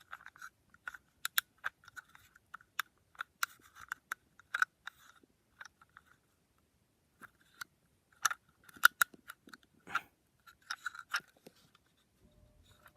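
Irregular small clicks and scratches of a plastic model locomotive tender and its loose wheel being handled for re-gluing, with a short pause about halfway through.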